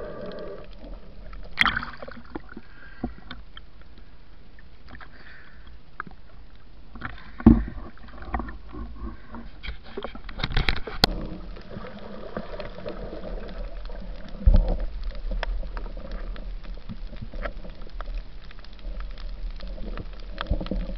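Muffled water noise and gurgling picked up by a camera underwater and at the sea surface, with a few dull knocks and thumps from the diver's movements against the housing.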